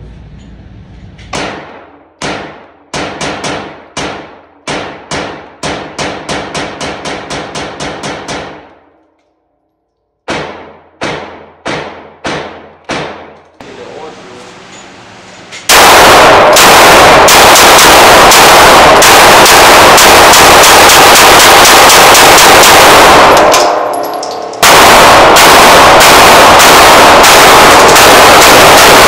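Pistol fired rapidly at an indoor range, each shot echoing briefly. The shots come in quick strings that speed up to several a second, with a short pause between strings. In the second half the shots come so fast and loud that the recording distorts into an almost unbroken blast, broken once for about a second near the end.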